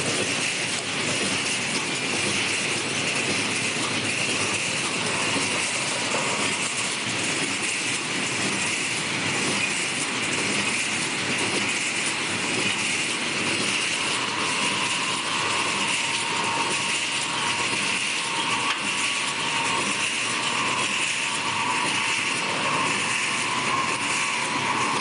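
Automatic wire mesh welding machine running continuously, a steady dense mechanical clatter of rapid clicks. A steady tone joins the clatter about halfway through.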